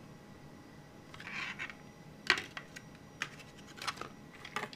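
Small die-cast toy car being handled and set down on a cardboard diorama: a soft rustle, then a sharp click, followed by a few lighter clicks.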